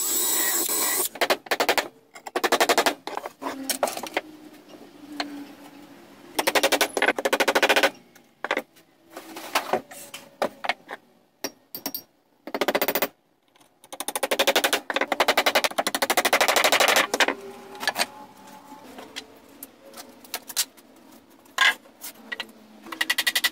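Cordless AEG impact driver driving screws into pallet timber, in several bursts of rapid clattering with pauses between, and a few single knocks in the gaps.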